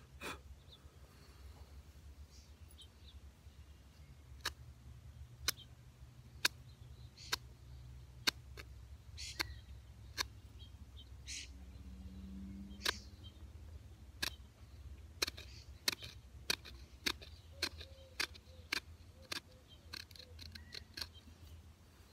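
Sharp, short clicks of a flint shard cutting and scraping at wood, starting about four seconds in at roughly one a second and quickening to about two a second in the second half.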